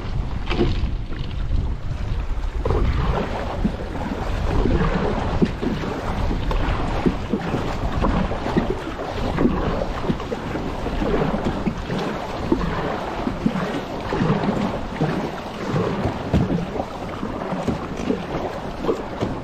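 Wind buffeting the microphone over choppy water splashing and slapping against a kayak.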